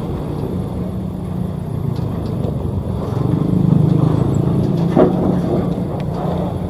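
Sakai asphalt paver's diesel engine running steadily as the machine travels, swelling a little about three and a half seconds in. A short sharp sound cuts through once about five seconds in.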